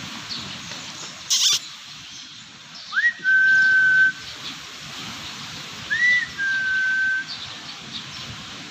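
A person whistling twice to call a puppy, each whistle a quick upward swoop into a held steady note, about three seconds apart. A short sharp click about a second in.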